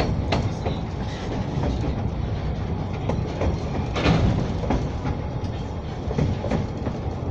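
Narrow-gauge children's railway train in motion, heard on board: a steady low rumble with irregular clicks and knocks from the wheels, the loudest knock about four seconds in.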